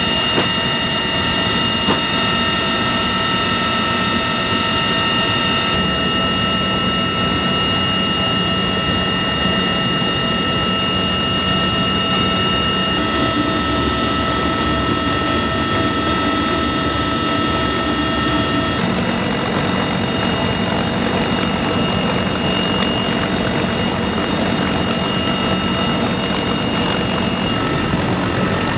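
Cabin noise of a CH-53E Super Stallion heavy-lift helicopter in flight: the steady rumble of its rotors and three turboshaft engines with a high transmission whine over it. The pitch of the whine shifts slightly a few times.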